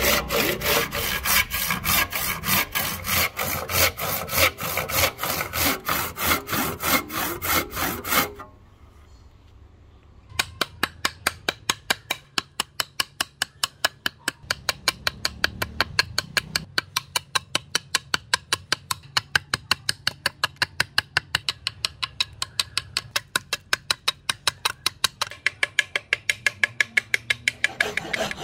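Handsaw cutting a row of kerfs into a dense ebony handle blank, with steady back-and-forth strokes at about three a second. After a pause of about two seconds the sawing resumes with quicker, sharper strokes.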